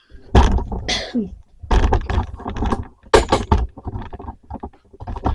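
A run of irregular thumps, knocks and rattles with heavy low rumble: handling noise as the recording device is picked up and moved, bumping against things.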